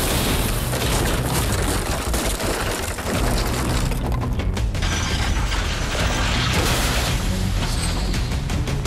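A heavy truck crashing into a steel wedge vehicle barrier: loud crunching and clattering of metal and debris, over background music.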